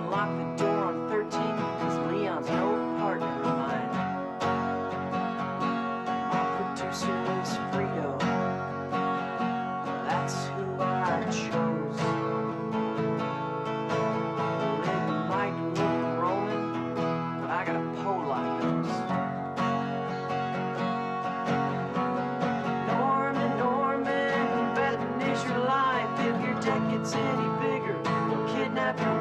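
Two acoustic guitars played together, strummed steadily.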